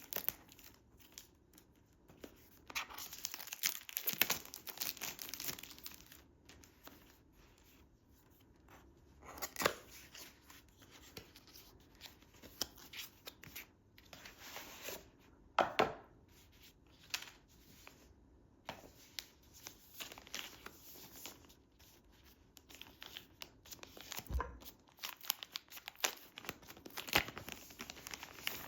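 Product packaging being unboxed: plastic and paper torn and crinkled, with irregular rustles and sharp clicks and taps as the box and its pieces are handled.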